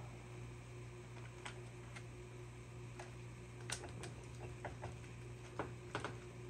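Scattered light clicks and ticks of a saw chain and guide bar being handled and seated on a chainsaw, over a steady low hum.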